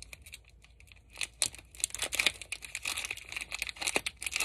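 Trading-card pack wrapper crinkling as it is handled, a fast irregular crackle that starts about a second in.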